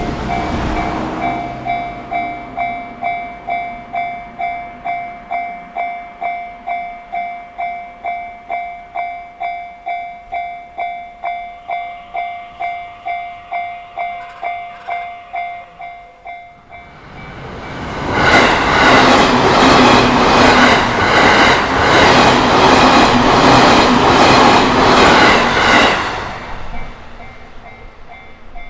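A Japanese railway level-crossing warning bell rings about twice a second. About halfway through, the bell gives way to an electric train passing through the crossing, loud for about eight seconds, then dying away. Under it a fainter, higher crossing bell keeps ringing.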